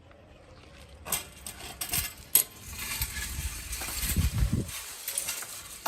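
Metal parts of an old rusty bicycle clinking and rattling as it is handled, with a few sharp knocks and some low thuds.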